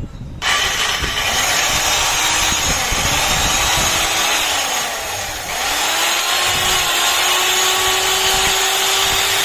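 Handheld electric cutter machine switched on about half a second in and running at full speed with a steady high whine. Its gearbox runs with new pinion gears and front bearing in place of worn ones. The sound dips briefly around the middle, then holds steady again.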